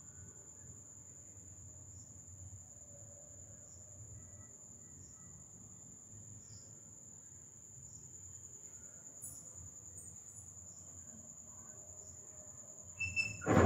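A steady high-pitched trill or whine over a faint low background hum, cut into right at the end by a sudden loud burst of sound.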